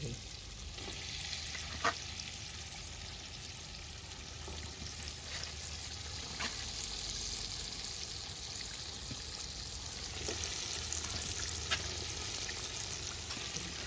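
Stingray fish curry sizzling and bubbling steadily in a pot, the fish and water just added to the spiced gravy, with a few sharp clinks now and then.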